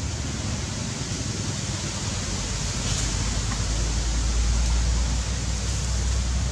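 Outdoor background noise: a steady hiss with a low rumble that builds through the middle and eases near the end, and a few faint ticks.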